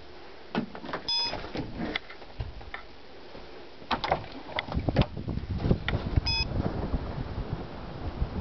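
Clicks and knocks of someone moving about and heading outdoors, with two short electronic beeps about five seconds apart. From about four seconds in, wind rumbles on the microphone.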